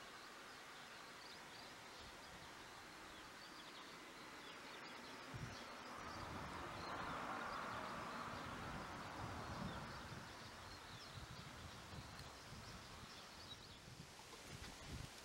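Faint outdoor background: scattered high chirping throughout, joined from about five seconds in by a soft rush and irregular low rumbling.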